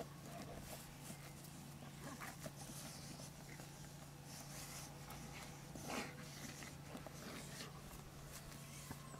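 Dog digging for a mole in lawn soil: irregular scratching and scraping of paws in earth, with its nose in the hole, and a louder burst of sound about six seconds in.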